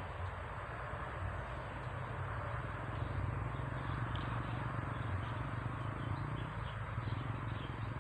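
Outdoor ambience: a steady hiss and low hum, with faint, short high chirps from small animals repeating through the second half.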